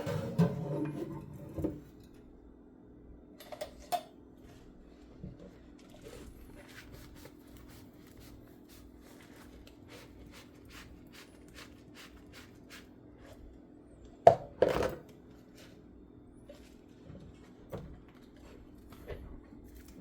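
Dishes and cutlery being hand-washed in a kitchen sink: loud knocks and clatter at the start and again about 14 seconds in, with light clicks and taps between, over a faint steady hum.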